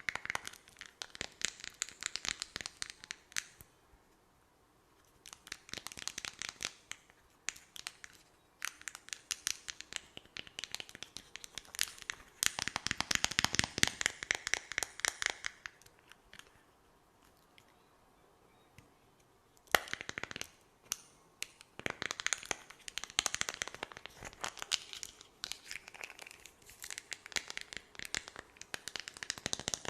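Close-miked ASMR mouth sounds: dense, rapid wet and sticky clicks and crackles in runs of a few seconds, broken by short pauses. There is a single sharper click about two-thirds of the way through.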